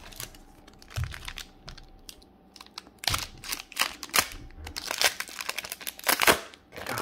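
Foil wrapper of a hockey card pack crinkling and tearing as it is slit open with a pocketknife and pulled apart, in quick crackling strokes that are loudest near the end.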